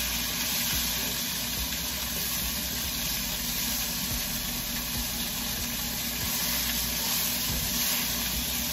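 Flour-dredged chicken pieces frying in hot oil in a pan, giving a steady sizzle throughout.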